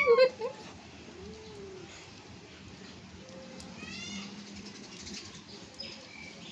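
A cat meowing loudly right at the start, then only a few faint, short calls over a low, steady hum.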